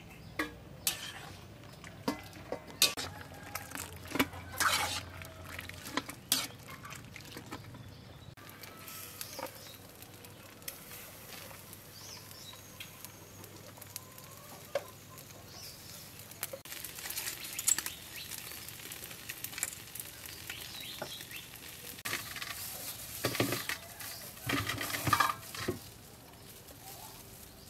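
Cooking sounds: a metal ladle clicks and knocks against a pot as boiled red chilies are scooped out. Then comes a quieter stretch of faint sizzling from fish on a charcoal grill, with birds chirping. Near the end there is a cluster of clinks as chilies go into a blender jar.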